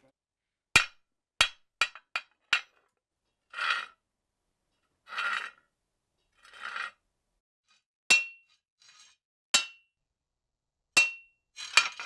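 Hand hammer striking a flat metal bar as Foley for metalwork: five quick strikes, then three short scraping sounds, then three single blows about a second and a half apart that leave a brief high metallic ring.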